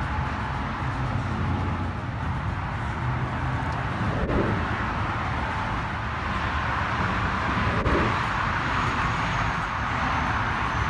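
Steady outdoor ambience: an even hiss with a low rumble underneath.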